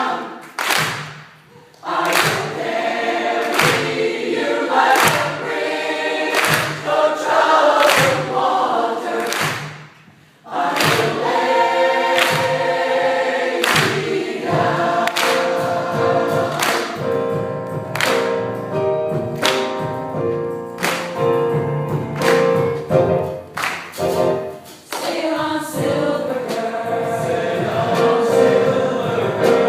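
Choir singing a gospel-style arrangement, with sustained chords and sharp percussive strokes between phrases. There is a brief drop-off about ten seconds in.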